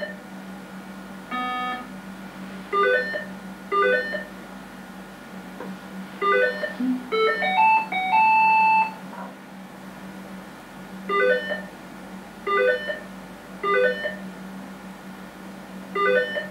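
Electronic tones from a touchscreen computer sequencing game: several short runs of quickly rising beeps, with a longer held tone around eight seconds in. A steady low hum sits underneath.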